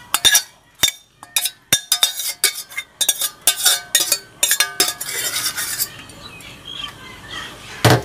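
Metal cutlery clinking and scraping against dishes: a quick run of sharp clinks, some ringing briefly, through the first five seconds, then a second of scraping and quieter handling, with a loud knock at the very end.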